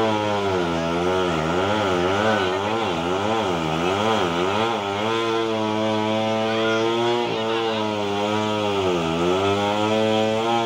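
Chainsaw running under load, its pitch sagging and picking up again and again as it works through wood, then holding steadier from about halfway, with one more dip near the end.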